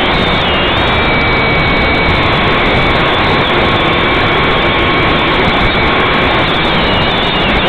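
Motors and propellers of a small radio-controlled aircraft, heard loud from its own onboard camera: a steady dense whirring with high motor whines that waver slightly in pitch.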